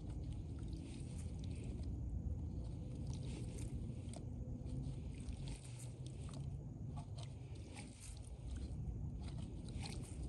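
Steady low wind rumble on the microphone, with scattered light clicks and scrapes from handling plastic pipe fittings.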